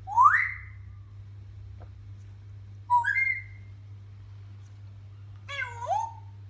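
African grey parrot calling three times: a loud rising whistle at the start, a short whistled call about three seconds in, and a fuller, wavering call near the end.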